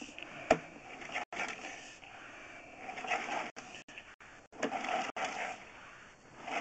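Sewer inspection camera's push cable being drawn back by hand out of the drain line, giving irregular scraping and rubbing handling noises with a sharp click about half a second in.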